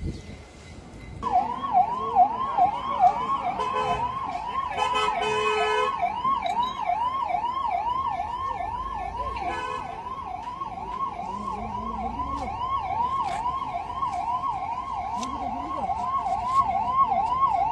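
Emergency vehicle siren sounding in a fast repeating yelp, about two to three rising-and-falling sweeps a second, starting about a second in. A second, harsher steady tone briefly joins it around five seconds in.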